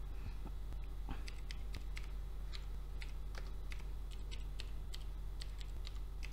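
Computer keyboard being typed on, with unevenly spaced faint key clicks, a couple to a few a second, over a low steady electrical hum.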